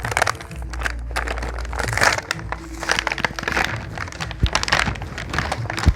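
Plastic packaging crinkling and rustling in irregular handfuls as a toy set is unwrapped, over background music with a steady low bass.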